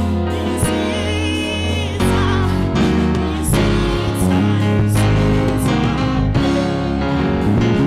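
Gospel choir singing a worship song in several voices over instrumental accompaniment with a steady bass line.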